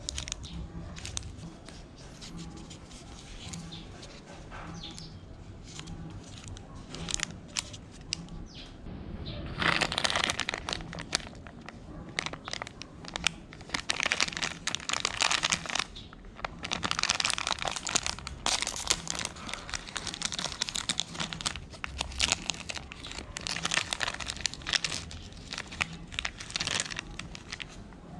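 Snack wrapper crinkling and rustling as a chocolate packet is handled and torn open, in irregular crackly bursts that grow louder and busier about a third of the way in.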